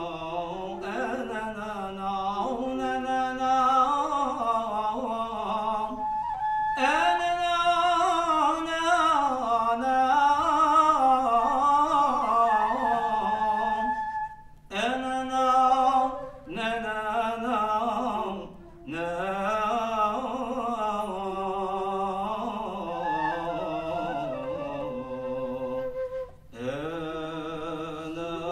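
A solo male voice singing Sufi devotional chant (inshad) in Arabic, drawing out long, slowly winding ornamented notes, with a few short breaks for breath.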